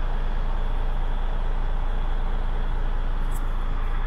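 DAF CF85's Paccar 460 bhp turbo diesel engine idling steadily, heard from inside the cab.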